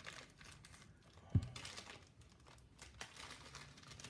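Crinkling and rustling of packaging being worked open one-handed to get a tool out, with one dull thump about a second and a half in and a sharp click near the end.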